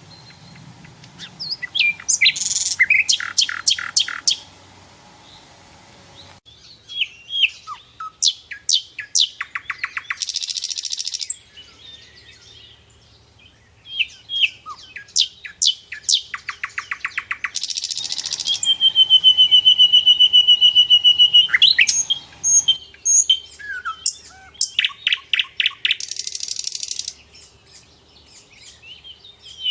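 Nightingale singing: varied loud phrases of rapid repeated notes and trills, broken by short harsh buzzy rattles, with one long held whistle lasting about three seconds a little past the middle.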